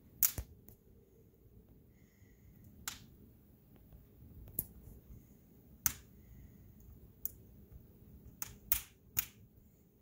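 Wood fire in a fireplace crackling: sharp pops at irregular intervals over a low hiss, several coming close together near the end.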